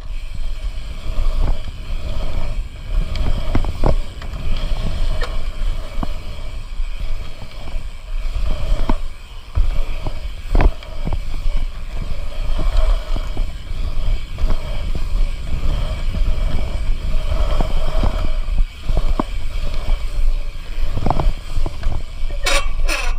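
Bike riding a pump track: wind rushing over the microphone and tyres rumbling over the rollers, with several sharp knocks and clicks from the bike along the way.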